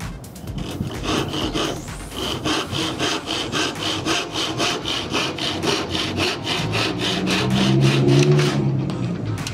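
Hand back saw cutting through a wooden strip, fast even push-and-pull strokes that stop shortly before the end. A low steady hum joins for a couple of seconds near the end.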